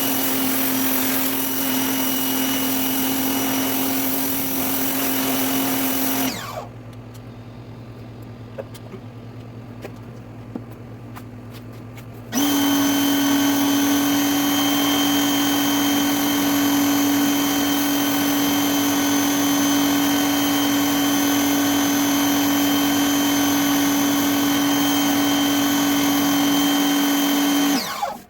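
Greenworks 2000 psi electric pressure washer running under load, its motor and pump making a steady hum with a spray hiss on top, as it drives a surface cleaner over concrete. It stops for about six seconds, starts again and runs steadily, then cuts off suddenly near the end.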